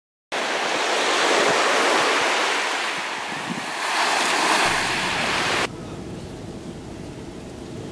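Sea surf washing onto a sandy beach: a loud, even hiss of breaking waves that swells once, then drops suddenly to a quieter, lower rush of gentle waves about two thirds of the way through.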